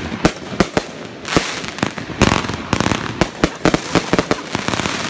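Aerial fireworks going off in quick succession: an irregular string of sharp bangs, several a second, with crackling between them.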